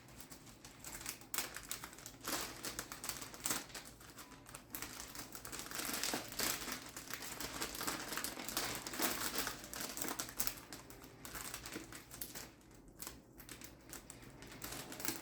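Gift-basket wrapping crinkling and rustling in a steady crackle as it is worked over the basket by hand, busiest midway through.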